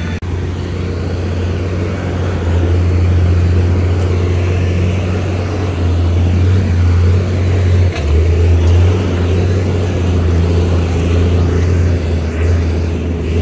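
Steady low rumble of a motor vehicle engine running, with a brief dip about eight seconds in.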